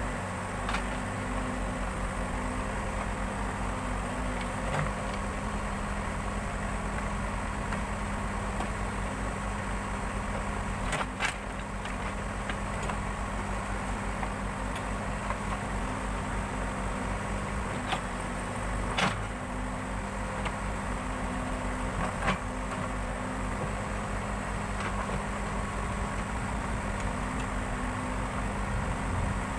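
Backhoe loader's diesel engine running steadily, with a few sharp knocks or clanks heard over it.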